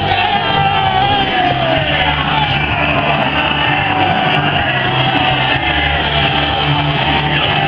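Football crowd singing loudly together over a steady low beat, celebrating a goal.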